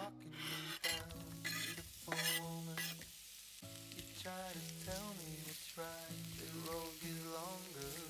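Sliced red onions sizzling in hot olive oil in a nonstick frying pan, stirred with a slotted spatula that scrapes and clacks against the pan; the sizzle is strongest in the first few seconds and then settles. Background music plays underneath.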